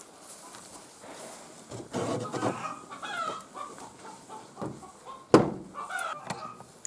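Chickens clucking in the coop, with scattered short calls, and a wooden coop door banging shut about five seconds in, the loudest sound.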